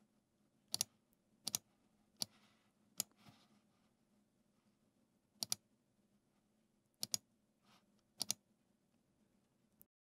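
Computer mouse clicks, about eight of them, many in quick pairs, with gaps of up to two seconds between them.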